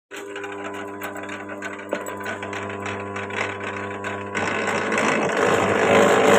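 Electric wire stripping machine running with a steady motor hum and rapid mechanical ticking. About four seconds in it gets louder and rougher.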